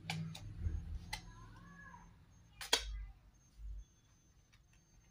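Tarot cards handled on a table: a few light clicks, then a short sharp swish a little past the middle as a card is drawn and laid onto the spread. A faint wavering high-pitched sound comes shortly before the swish.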